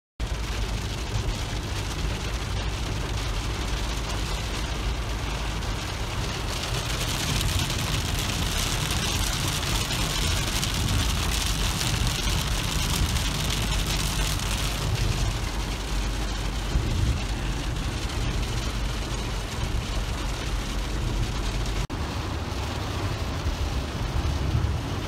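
Heavy rain falling on a moving car, heard from inside the cabin, over a steady low rumble of road and engine noise. The rain is loudest from about a third of the way in to just past the middle.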